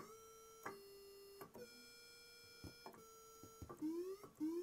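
Roland Juno-106 analog polysynth sounding a single buzzy square-wave note, quiet and steady, as test mode steps through its six voice chips one at a time. Each change of voice brings a click and a short upward pitch glide, several times over.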